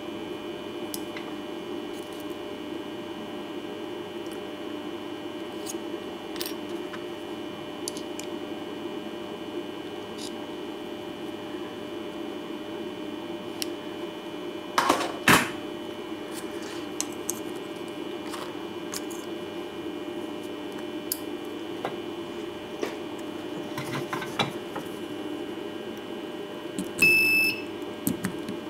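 Steady machine hum with light clicks of small metal parts being handled, and a loud double knock about halfway. Near the end comes a short electronic beep from the resistance spot welding machine as the welding handle is pressed onto the work.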